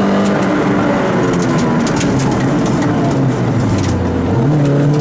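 Peugeot 106 rally car's engine heard from inside the cabin: the revs drop off early as the car slows, sink to a low point about four seconds in, then climb again near the end as it accelerates.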